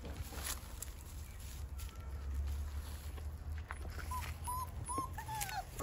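Young puppies whimpering: a few short, high whines in the second half, one falling away near the end, over a steady low rumble.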